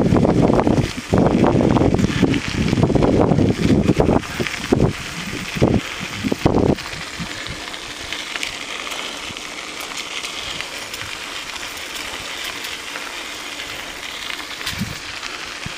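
Wind buffeting the microphone of a camera held by a rider on a moving bicycle, in gusts for about the first seven seconds. It then drops away to a steady, quieter hiss of the bike's tyres rolling on the packed trail.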